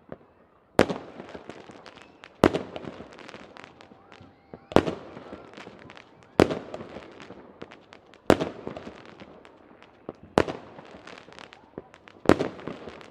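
Fireworks going off: seven loud bangs, about one every two seconds, each followed by a crackling spray of many small pops that dies away.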